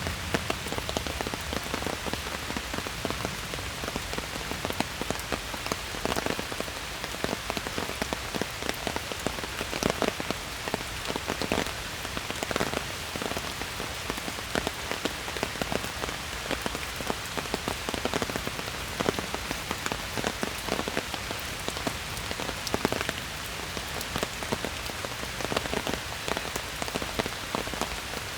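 Steady rain falling in a forest, an even hiss with many separate drops pattering close by.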